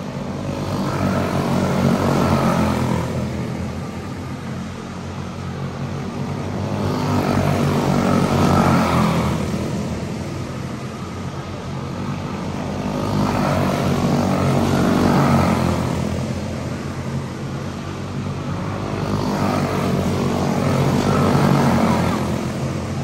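Quarter midget race cars' Briggs & Stratton Animal single-cylinder engines running flat out in a buzzing pack. The sound swells and fades about every six seconds, once a lap.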